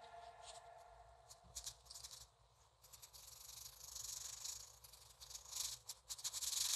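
Pencil scratching across paper in quick back-and-forth shading strokes, in uneven runs that are loudest near the end. The last of a song's background music fades out at the very start.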